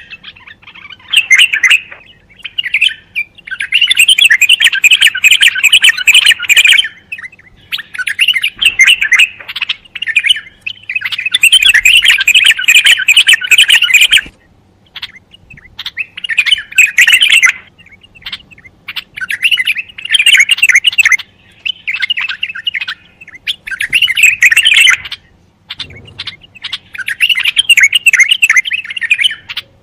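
Bulbul singing: repeated bouts of rapid, loud notes, each lasting one to three seconds, with short pauses between them.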